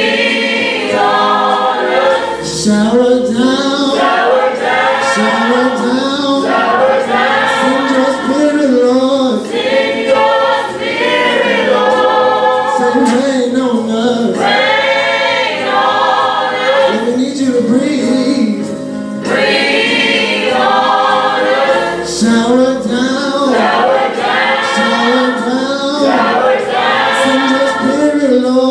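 Worship team of mixed voices singing a slow gospel praise song together in harmony into handheld microphones, in phrases of a few seconds each.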